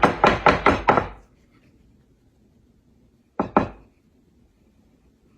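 A filled pie pan being tapped against the countertop: a quick run of about half a dozen knocks, then two more a couple of seconds later. The tapping settles the pecan pie filling so the pecans float up to the top.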